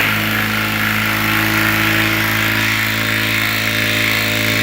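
Power drill running steadily at one pitch, driving a large screw into a wooden ceiling joist.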